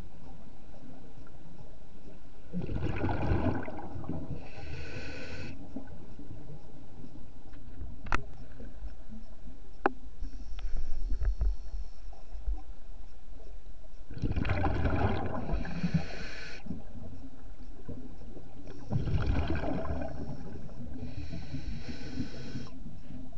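Scuba diver breathing through a regulator underwater: three breaths, each a rush of air and bubbles lasting two to three seconds. A few faint clicks come between the first and second breaths.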